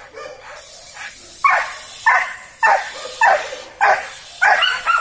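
Working dog barking at a helper in protection training: a run of sharp, loud barks starting about a second and a half in, roughly two a second, coming faster near the end.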